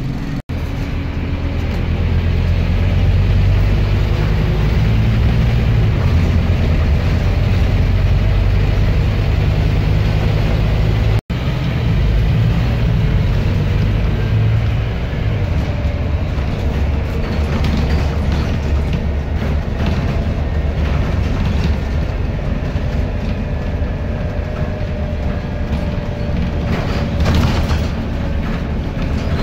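Scania N230UD double-decker bus heard from inside while under way: the steady drone of its five-cylinder diesel engine with road and body rumble. The sound drops out for an instant twice, about half a second and about eleven seconds in.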